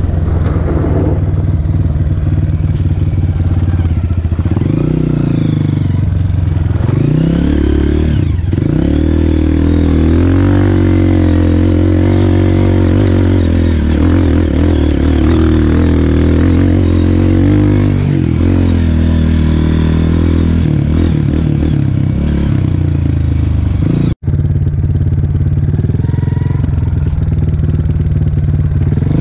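Honda CRF230F dirt bike's single-cylinder four-stroke engine running hard under load on a trail. The revs dip and climb again several times with throttle and gear changes.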